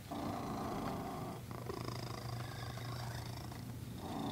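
Domestic cat purring steadily up close while being petted, the purr swelling and easing with each breath.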